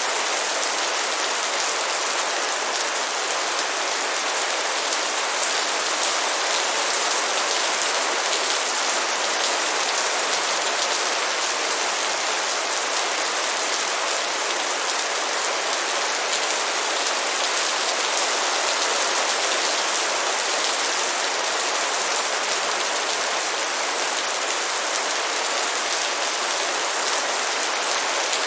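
Steady light rain falling: an even hiss full of tiny drop ticks that holds unchanged throughout.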